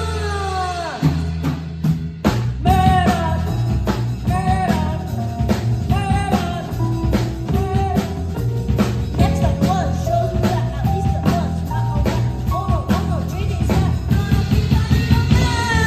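Live rock band playing on drum kit, bass guitar and keyboard, with a child singing over it. Long falling glides in pitch come near the start and again near the end.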